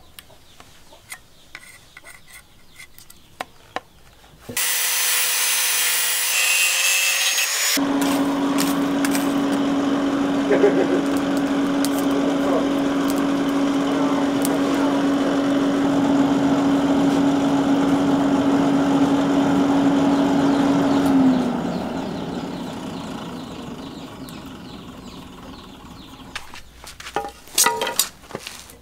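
Air blower on a charcoal forge running with a steady hum and rush of air, then switched off about three quarters of the way through and winding down over several seconds. Before it comes a few seconds of loud hiss. Near the end there are a few sharp knocks, as of the PVC pipe set on a wooden block.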